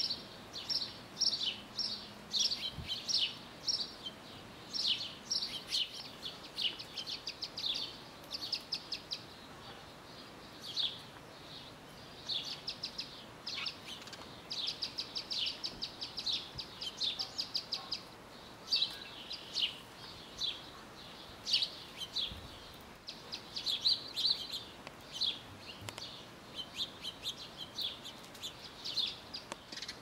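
Wild birds chirping busily: quick runs of short, high chirps with brief pauses between the runs.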